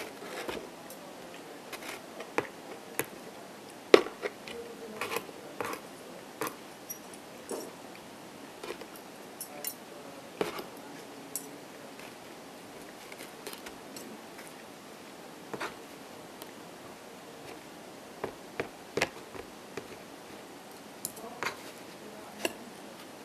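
A man chewing a slice of pizza close to the microphone, with irregular short clicks and smacks of the mouth, the loudest about four seconds in.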